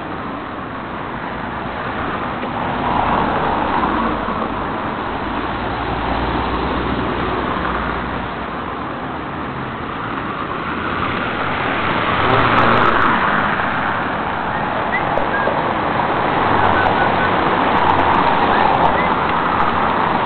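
Road traffic noise, a steady wash of cars on the street, swelling as vehicles pass about eleven seconds in and again near the end.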